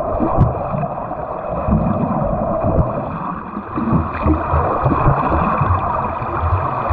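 Water splashing and churning from a swimmer doing butterfly stroke drills, with irregular low surges of moving water.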